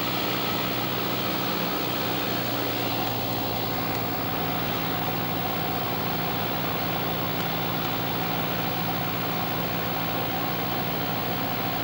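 Cessna's piston engine and propeller droning steadily, heard inside the cockpit, with a small shift in pitch about two seconds in.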